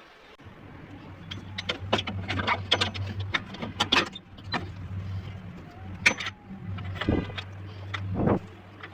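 Car engine running at idle, a steady low hum that comes in about half a second in. Irregular sharp metallic clicks and knocks sound over it, with a short quick rattle of clicks near the end.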